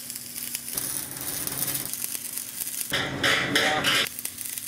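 Electric arc welding on a steel mast tube, the arc crackling and hissing steadily. A louder, harsher burst comes about three seconds in and lasts about a second.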